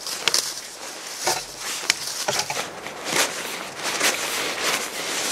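Dry fallen leaves rustling and crunching underfoot as a stick is handled, with irregular scrapes and sharp crackles a few times a second.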